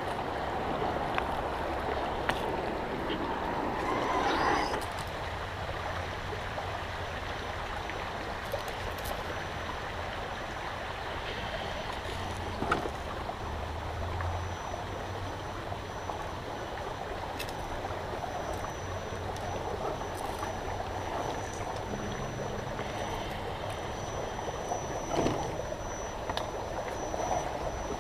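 A shallow river running steadily, louder and more splashy for the first five seconds while the RC crawler truck wades through it. A few sharp clicks stand out as the truck crawls over the river stones.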